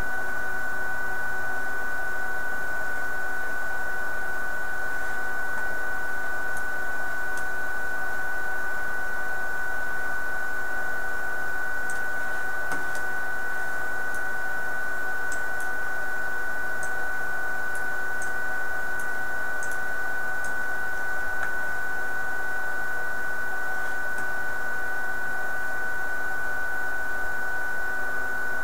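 Spindle motor of a hobby CNC router running at a constant speed with a steady high whine while the machine sits idle and does not cut. Faint scattered high ticks are heard now and then.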